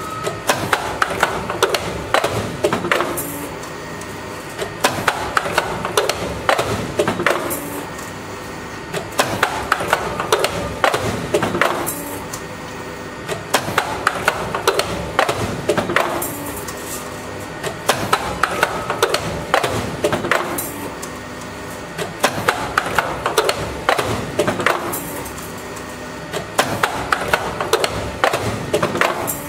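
An automatic wire hook forming machine running through its bending cycle: rapid clusters of metal clacks and knocks as its cylinders strike and bend the wire, coming round about every four to five seconds, over a steady hum.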